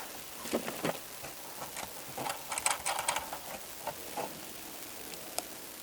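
Scattered light clicks and taps from a plastic taillight housing being worked into place on a car's rear, over a steady hiss. The taps come in small groups, with the busiest run about two to three seconds in.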